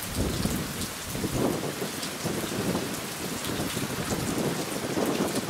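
Steady heavy rain, with many close drops hitting a nearby surface.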